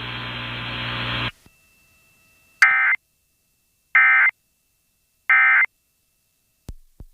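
Emergency Alert System end-of-message signal: three short bursts of SAME digital data tones, about 1.3 seconds apart, closing the tornado warning. Before them, a steady hiss and hum from the alert's audio feed cuts off about a second in, and two faint clicks follow near the end.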